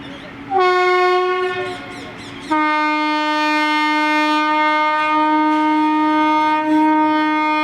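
WAP-7 electric locomotive's dual-tone horn: a higher-pitched blast of about a second, then after a short break a long, steady lower-pitched blast lasting over five seconds.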